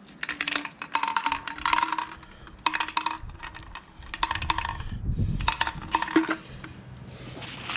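Marbles clattering into a small plastic fuel tank, in several bursts of rapid clicks and rattles.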